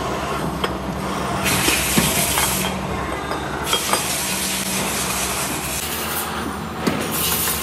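Multi-spindle drilling machine running and boring the spoke holes in an aluminium motorcycle wheel hub flange: a steady motor hum, with a higher hiss of cutting that comes and goes and a few sharp clicks.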